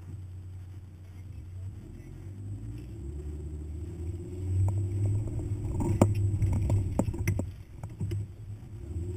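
Hummer's engine rumbling low under load as it climbs a rocky dirt mound off-road. It grows louder about halfway through, and several sharp knocks come as the truck crests the mound, the loudest about six seconds in.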